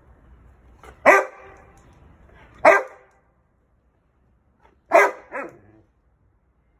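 Rhodesian ridgeback barking: three loud barks, about a second and a half to two seconds apart, the last one followed quickly by a shorter, weaker bark.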